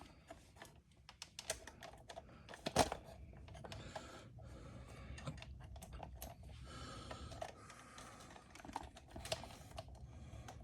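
Faint, scattered light clicks and knocks of things being handled on a workbench, with one sharper knock about three seconds in and a few more near the end.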